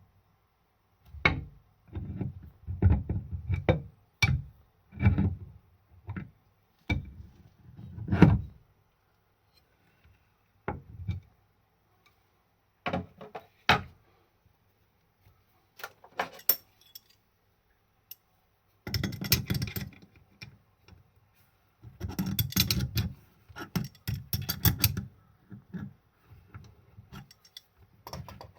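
Hand work on metal parts and tools: irregular knocks and thumps, then bursts of metallic clinking and rattling about two-thirds of the way in.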